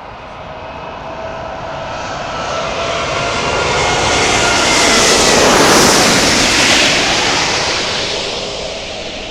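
Emirates Airbus A380-800 passing low overhead on its landing approach: jet engine noise swelling to a peak about six seconds in, then fading, with whining engine tones that slide down in pitch as it goes by.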